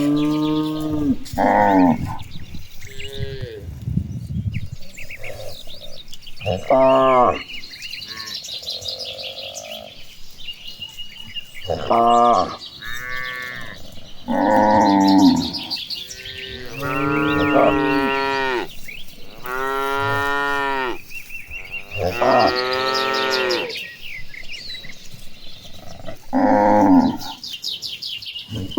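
Cows mooing over and over, about ten long moos of differing pitch and length, some overlapping, with high thin chirping in the background between them.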